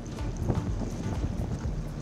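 Jet boat running on a river: a steady rush of engine and water, with wind buffeting the microphone.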